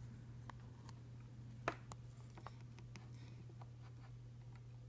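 A few faint clicks and taps of multimeter test probes being picked up and set against a coin-cell battery and breadboard, the clearest about a second and a half in, over a steady low hum.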